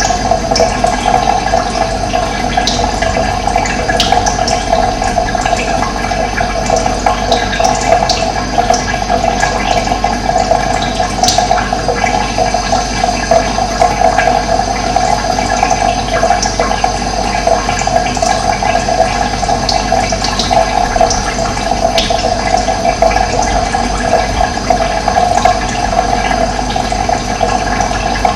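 Running water flowing and gurgling steadily, with no pauses or change in level.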